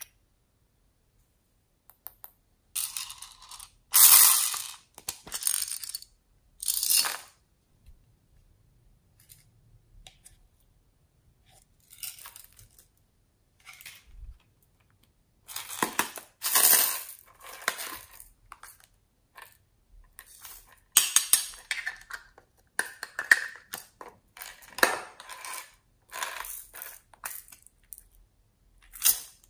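Small plastic beads, sprinkles and glitter being shaken out of little jars and a plastic scoop into a plastic bowl of clear slime: a scattered rattling and clicking of tiny hard pieces in several bouts, some of a second, some of several seconds.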